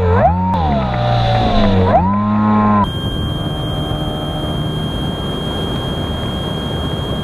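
Electric motor of an RC plane, picked up by the onboard camera, whining with the throttle: its pitch dips sharply twice and climbs back. About three seconds in it cuts to a steady rushing noise with a thin, steady high whine.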